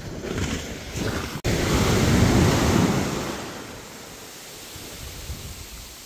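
Strong sea waves washing in. One wave surges up loudly about a second and a half in and dies away over the next two seconds.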